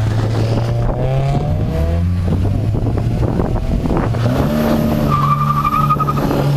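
Volkswagen Golf engines accelerating hard from the start of a drag race, revs climbing, dropping at a gear change about two seconds in, then climbing again, with a brief tire squeal about five seconds in.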